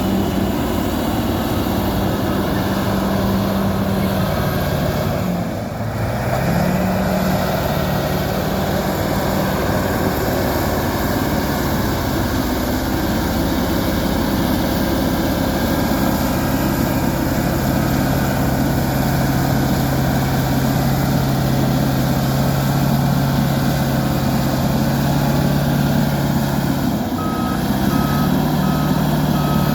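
Fiat-Kobelco FD300 crawler bulldozer's diesel engine running hard; its note dips briefly about six seconds in, then picks back up and shifts again near the end. A reverse alarm beeps at the start and again near the end.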